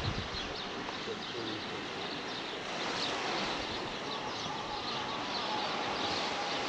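Outdoor ambience: a steady rushing noise with many small birds chirping throughout.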